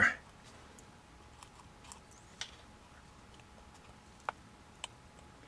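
A few faint, scattered clicks and taps of fingertips pressing on a plastic instrument case, the sharpest about four seconds in.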